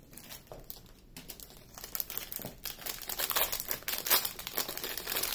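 Small clear plastic bag crinkling as hands open it and pull a diamond-painting tool out. It is sparse for the first couple of seconds, then becomes a dense, steady crackle.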